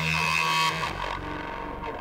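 Electronic psytrance music near the end of a track. A dense held synth chord cuts off abruptly under a second in, leaving quieter gliding, warbling electronic tones over a low rumble.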